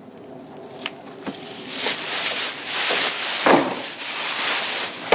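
Thin plastic bag rustling and crinkling as it is pulled down off a generator, with a few light clicks at first and the crinkling loud and dense from about two seconds in.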